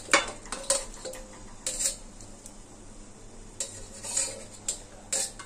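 Metal spatula scraping fried fish heads off a plate into a wok of thick cooked greens, with a few scattered clinks and scrapes of metal against the pan and plate.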